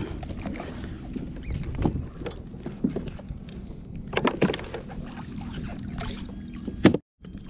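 Low rumbling noise of a kayak on the water, with scattered knocks and clicks on the hull. A cluster of sharper knocks comes about four seconds in and another near the end, then the sound cuts out briefly.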